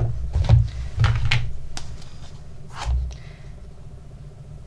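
Handling sounds on a kitchen counter: a few knocks and clatters of plastic containers being put down, picked up and opened, spread over the first three seconds.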